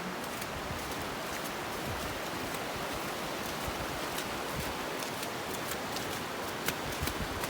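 Steady rushing of flowing water, an even hiss with no pitch, with a few light clicks near the end.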